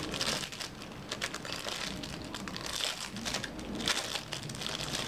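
Clear plastic bag crinkling and crackling in a run of quick, irregular rustles as a small remote control is handled and unwrapped from it.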